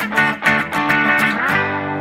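Background music with quick, even strummed guitar chords, about four a second, then a final chord held and ringing out from about one and a half seconds in.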